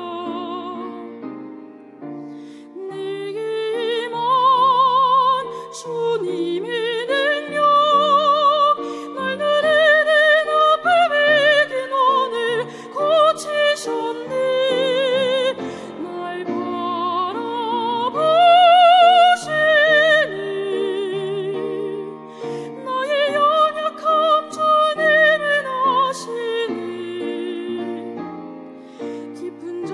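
A soprano sings a sacred song in operatic style with wide vibrato, holding long notes, over instrumental accompaniment.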